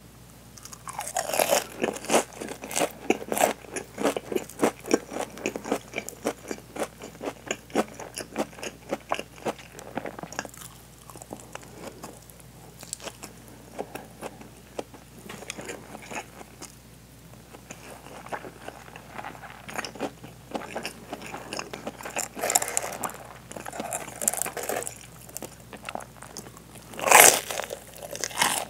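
Crunching and chewing of deep-fried, breadcrumb-coated hanpen (soft fish cake) filled with cheese: dense crisp crunches over the first several seconds, softer chewing through the middle, and one loud crunching bite near the end.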